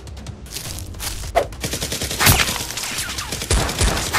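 Rapid gunfire, likely dubbed gunshot sound effects: a dense run of shots starting about half a second in, with a few louder, heavier shots toward the end.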